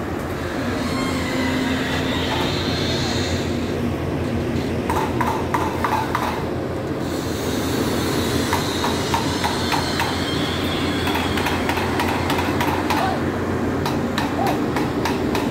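Pindad PC200 excavator's diesel engine running steadily under load while its steel tracks clank and knock as it drives up onto a self-loader truck. The clanking comes in clusters about five seconds in and again near the end.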